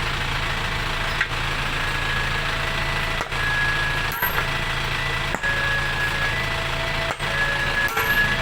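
Steady running of an engine-like machine with a low hum, and a faint high whine that comes and goes.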